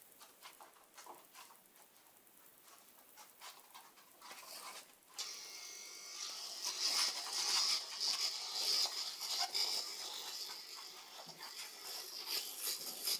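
Two Shiba Inu puppies play-wrestling on a laminate floor: light ticking of claws and paws at first, turning about five seconds in into louder scuffling with small puppy panting and play noises.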